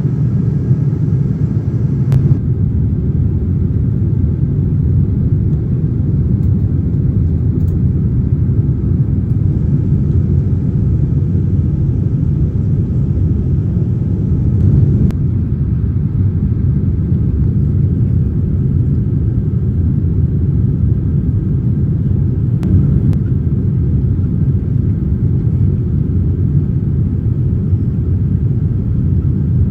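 Steady low rumble of a Boeing 787-9 airliner's cabin in flight, the noise of its engines and the airflow over the fuselage, with a few faint clicks.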